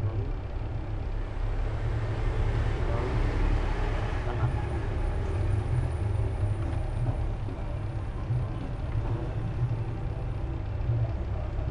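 Steady low rumble of background noise with a faint hiss above it.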